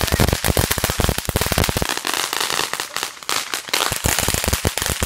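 Ground fountain firework spraying sparks, its crackle effect popping in a dense, rapid string of small sharp cracks. About the middle, the cracks thin into a more even spray noise.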